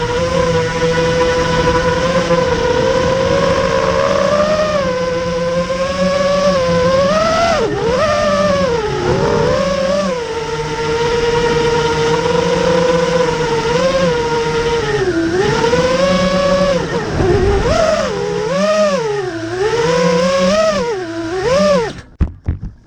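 Brushless motors and propellers of an FPV quadcopter (iFlight Xing-E 2207 1700KV motors) whining under changing throttle, the pitch gliding up and down with each punch and dive, faster swings near the end. The motor sound cuts off abruptly about 22 seconds in, with a few brief knocks after.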